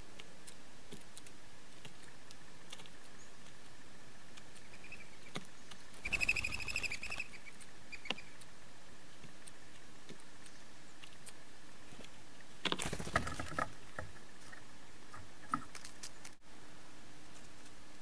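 Blue jay feeding on a wooden bird table: scattered light taps and ticks of its bill picking seed from the boards, over a steady hiss. A single harsh, buzzy bird call sounds about six seconds in, and a brief rustling flurry of taps follows about thirteen seconds in.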